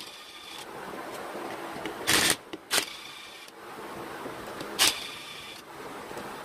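Cordless power driver with a socket extension unscrewing an alternator's case through-bolts in short bursts: brief loud runs about two seconds in, again just after, near five seconds and at the end, each trailing off in a thin motor whine.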